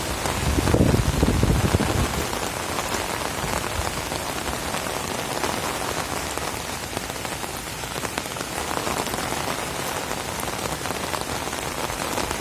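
Heavy rain falling steadily in a dense, even hiss, with a low rumble for the first two seconds or so.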